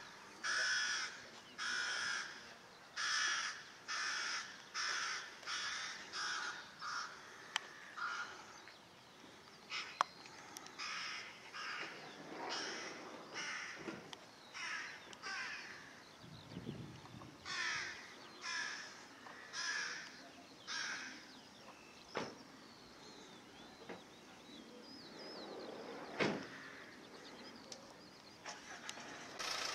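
A bird calling over and over, about one call a second, in two long runs with a short pause between them about ten seconds in. A few sharp clicks cut in, the loudest one near the end.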